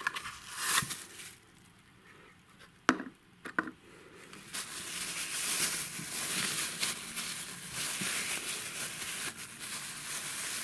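A few light clicks and taps from handling a small cardboard box, then from about four and a half seconds on a thin clear plastic bag crinkling and rustling as fingers work inside it.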